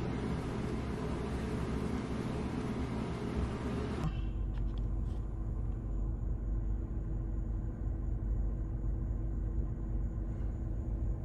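A steady hiss for about the first four seconds. It then switches suddenly to the low, steady rumble of a car's cabin creeping along in heavy traffic, with a faint steady hum over it.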